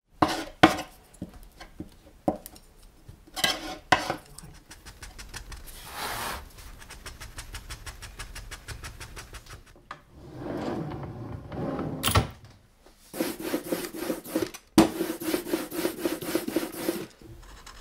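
Hand tools working a printing block: scraping and rubbing strokes, with a few sharp knocks and two runs of quick, evenly spaced strokes.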